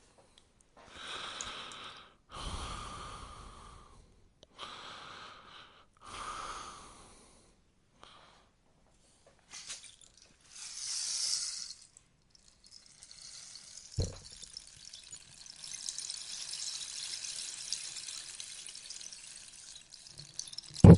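Rainstick turned over again and again, its filling trickling down inside in short cascades of about a second each, then in one longer continuous run. A sharp knock comes about 14 seconds in and a louder one near the end.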